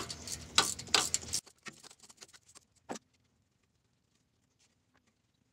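A metal hand tool clicks and clinks against metal as the bolt holding a rear wheel speed sensor is undone. It is busy for about a second and a half, then falls to a few faint ticks and one last click near three seconds in, and after that near quiet.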